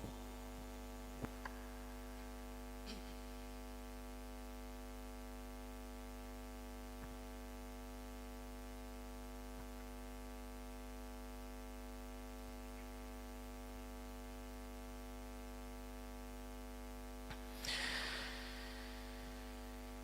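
Steady electrical mains hum from a sound system, with a few faint clicks and a brief hiss near the end.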